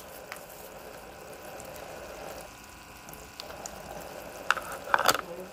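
Tap water running steadily into a sink, with a few sharp knocks from handling near the end.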